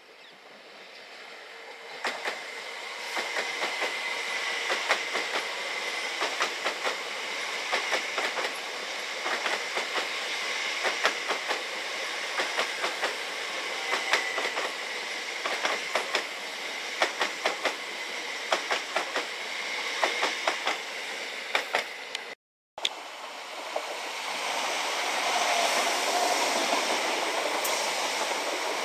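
Class 720 Aventra electric multiple unit passing at speed, its wheels clicking rapidly and repeatedly over rail joints above a steady rushing noise. After a brief cut near the end, a second electric multiple unit passes with a steadier rushing sound.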